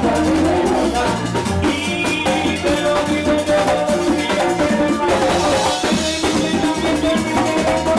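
Loud, upbeat Puerto Rican plena music, heavy on drums and shakers, with a bass line under it.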